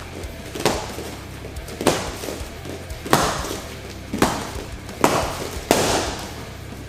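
Fast jabs and back fists smacking against hand-held strike targets, six sharp hits about a second apart, over background music.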